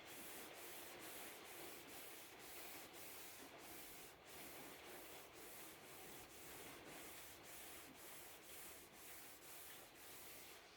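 Cloth rubbing a first, sparing coat of oil into a wooden speaker cabinet's veneer: faint, even back-and-forth strokes, about two a second.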